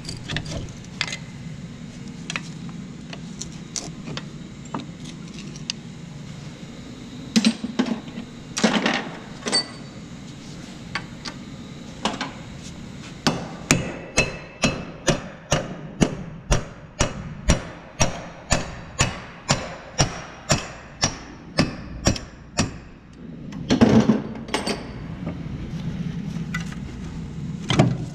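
Hammer striking the end of the CV axle shaft in a 2004 Ford Escape's front wheel hub: a steady series of about twenty metal-on-metal blows, about two a second, to drive the axle out of the hub. Scattered knocks and clanks of tools and parts come before and after the run of blows.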